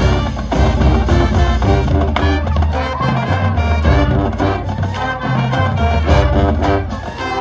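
High school marching band playing a show tune: brass and drums, with a strong bass line under a steady beat.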